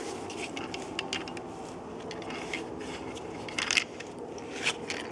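Screw cap being worked on a stainless steel bottle: a run of small clicks and scrapes from the cap and metal, with a louder clatter a little before four seconds in.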